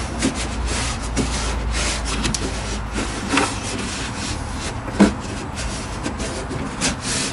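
Hands rubbing and pressing an adhesive strip down along the inside rim of a hard motorcycle saddlebag: a steady scratchy rubbing with small clicks, and a few knocks against the bag, the loudest about five seconds in.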